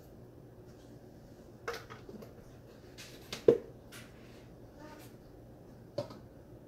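A few sharp knocks and clicks of glass jars and kitchen containers being picked up and set down on a counter, the loudest about halfway through, over a faint steady background hum.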